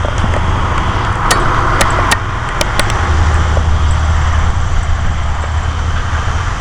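Steady low rumble and hiss of road traffic, with a handful of sharp clicks about one to three seconds in.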